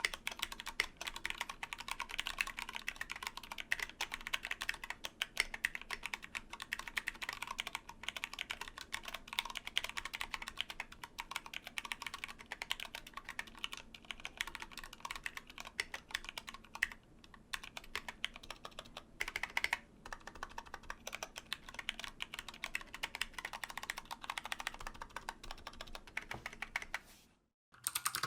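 Fast, continuous typing on a mechanical keyboard switch, a dense stream of key clicks and bottom-outs. Near the end it breaks off for a moment, then resumes.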